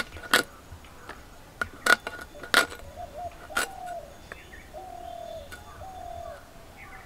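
Sharp scraping clicks as a tilapia's scales are scraped off against a bonti blade, four loud strokes in the first four seconds. A bird calls in the background with short falling notes, several times after the middle.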